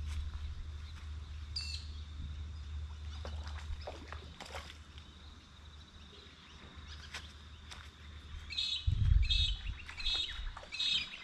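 Outdoor riverbank sound: a bird calls in a quick run of four chirps near the end, after a single call about two seconds in. Under it runs a steady low rumble, which ends with a brief loud low thump about nine seconds in.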